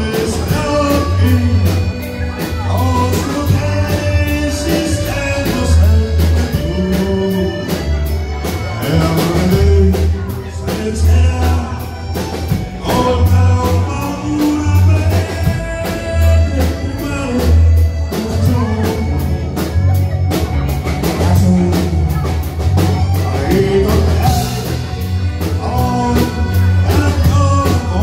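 Live band playing a song: accordion, electric bass guitar, drum kit and electric guitar, with a male singer on the microphone over a steady beat and a pulsing bass line.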